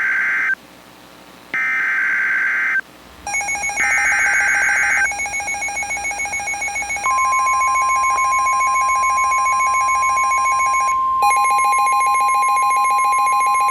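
Emergency Alert System SAME header: three warbling digital data bursts, each about a second long with short gaps between them. About seven seconds in, a steady single-pitch NOAA Weather Radio warning alarm tone starts and holds, announcing the severe thunderstorm warning that follows. From about three seconds in, a second pulsing, ringing electronic tone runs underneath.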